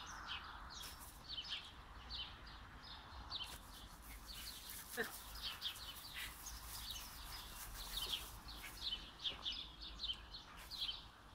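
Small birds chirping steadily in the background. There is a brief faint falling call about five seconds in, and a sudden loud sharp sound at the very end.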